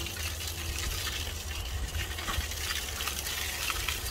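Fish sizzling inside a sealed foil packet on a gas grill: a steady hiss with faint crackles, over a low rumble.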